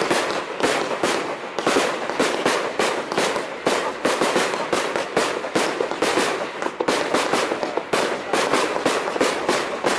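Fireworks firing in a fast barrage: sharp launch reports and bursts in quick succession, several a second and without a break.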